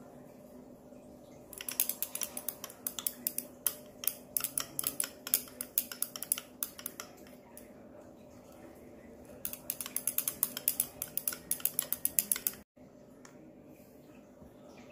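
Stainless steel stirring rod clinking quickly against the inside of a glass beaker, several clicks a second, as sodium PCA is stirred in to dissolve. Two spells of stirring with a short pause between; the second cuts off suddenly near the end.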